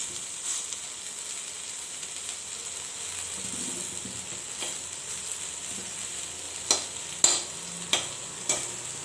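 Brinjal frying in hot oil in a pan: a steady sizzle, with several sharp clicks in the second half.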